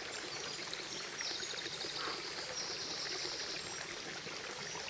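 Steady outdoor background hiss, with a high, fine trill from about one second in until about three and a half seconds in.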